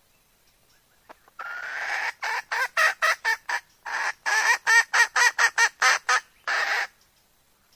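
Female red junglefowl cackling: one drawn-out call, then a quick run of about fourteen short clucks, then a final drawn-out note near the end. It is a hen's call of readiness to mate, used as a lure to draw in males.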